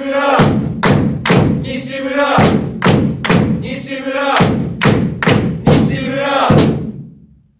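Football supporters chanting a player's name in unison, each call punctuated by beats of a drum, repeating about every two seconds. The chant fades out near the end.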